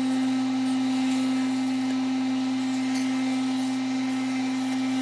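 Electric sander running steadily with an even motor hum while smoothing the wooden tray.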